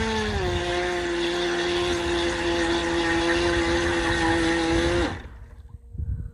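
Feilun FT011 RC boat's brushless motor running at speed: a steady high-pitched whine that drops slightly in pitch just after the start, then stops abruptly about five seconds in.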